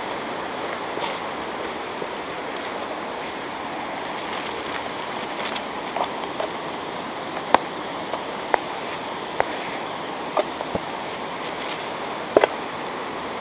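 Steady rushing of a fast-flowing stream swollen with winter water. From about six seconds in come sharp, irregular clicks and crunches of footsteps on a stony, leaf-covered path.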